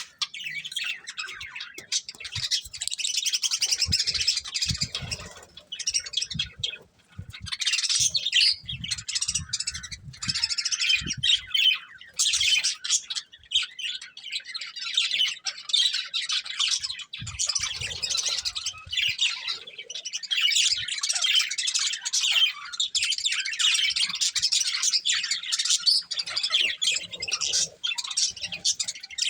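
Budgerigars chattering and warbling almost without a break, fast high chirps and squawks tumbling over one another. A few soft low knocks come in the first half.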